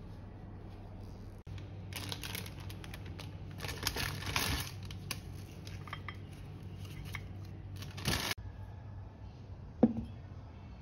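Crinkly rustling and small clicks of paper cake liners as hands handle steamed cakes on a ceramic plate. Then, near the end, one sharp clink as the ceramic plate is set down on the table.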